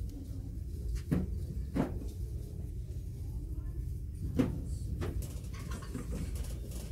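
Store ambience: a steady low hum with a few sharp knocks scattered through it, about four in all.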